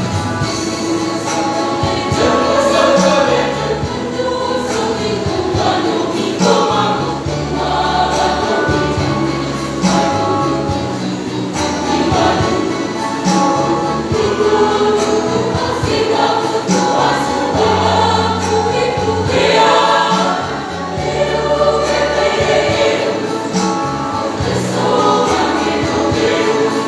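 A school choir singing a song, with low held notes underneath the voices.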